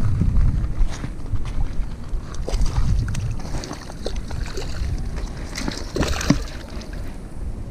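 Wind buffeting an action camera's microphone in a low, uneven rumble, with scattered clicks and crunches, the thickest cluster about six seconds in.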